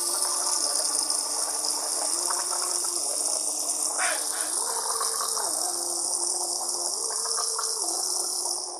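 Running water, a steady hissing gush that sets in abruptly, with faint low tones stepping up and down beneath it.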